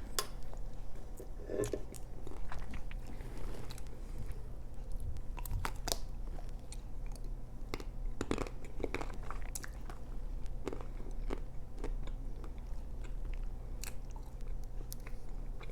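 Close-miked biting and chewing of a Magnum ice cream bar, its chocolate shell cracking in scattered crunches. A steady low hum runs underneath.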